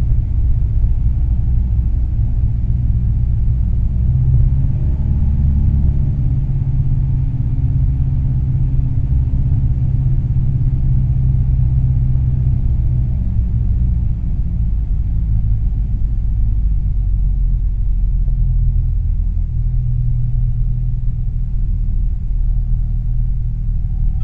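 Cessna 172M's four-cylinder Lycoming engine and propeller droning steadily through the cabin on final approach to landing. The pitch of the drone rises slightly about four seconds in and settles lower again about halfway through.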